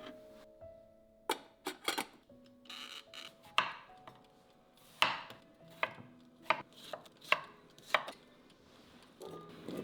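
A knife chopping on a cutting board in irregular strokes, about one every half second to a second, with soft background music under it.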